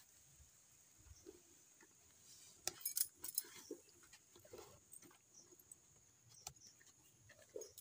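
Cow being milked by hand: faint, scattered squirts and clinks, the loudest cluster about three seconds in.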